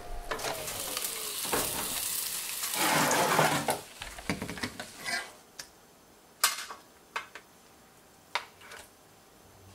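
Oven door opened on a hot baking tray of roast chicken thighs, the fat and juices on the foil sizzling for a few seconds, loudest about three seconds in. Then a few sharp clicks of metal tongs against the metal trays as the chicken is lifted off.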